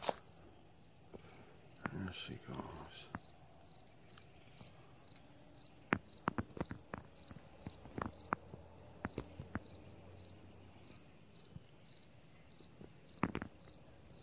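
Evening crickets chirping, a steady high trill that pulses about twice a second, with a few sharp clicks in between.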